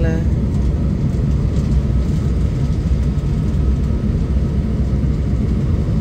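Steady low rumble of a jet airliner's engines and rushing air heard inside the passenger cabin, with a faint steady whine above it.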